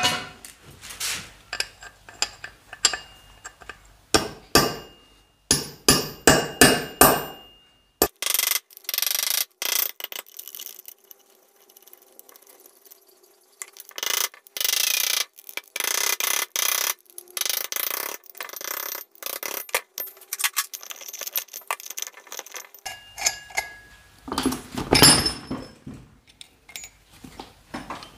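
Hammer blows ringing on steel, including a quick run of about six strikes, then stretches of rapid knocking and scraping as a hammer drives a punch against the nuts on a scooter wheel rim.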